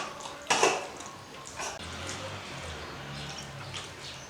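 Eating sounds at a meal: a short sharp scrape about half a second in, then quieter faint noises.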